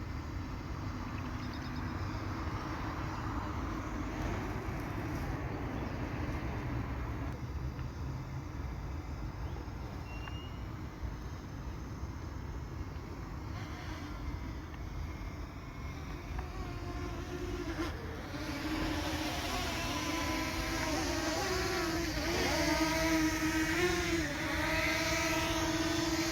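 Camera drone's propellers humming steadily in flight, over a low rumble. About two thirds of the way in the hum gets louder and wavers in pitch as the drone manoeuvres.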